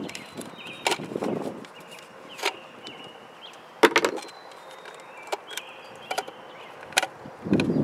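Scattered sharp clicks and knocks from handling a plastic retractable tie-out reel and taking a spring clamp off its cord, with the loudest knock about four seconds in.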